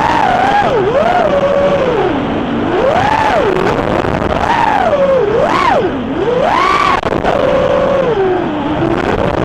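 Brushless motors of a 210-size FPV racing quadcopter whining, the pitch sweeping up and down over and over as the throttle changes, over a steady hiss.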